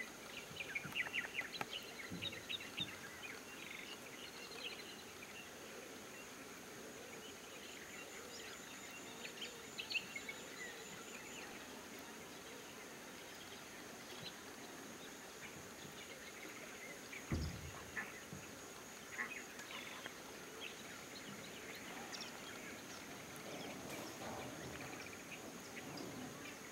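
Lakeside ambience: birds chirping, busiest in the first few seconds, over a steady high insect whine, with one low thump about two-thirds of the way through.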